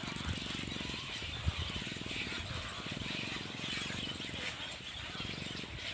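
A small engine running steadily, with outdoor background noise.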